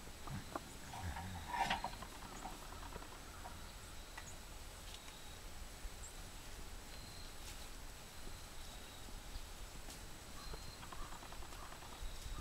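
Cattle shuffling and stepping about in a holding pen, with a brief louder knock about a second and a half in, then faint scattered movement.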